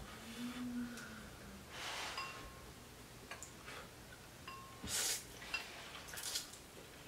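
Instant ramen noodles being slurped with chopsticks from a bowl: a few short, faint slurps spread across several seconds.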